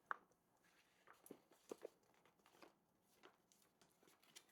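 Near silence with a few faint, scattered taps and rustles from a small cardboard box being handled. The clearest tap comes just after the start.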